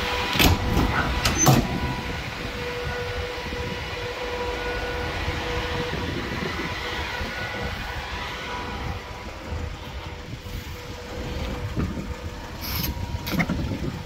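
Iveco 72C17 refrigerated truck running: a steady low rumble with a steady whine that fades out about two-thirds of the way through, and a few sharp clicks or knocks near the start and near the end.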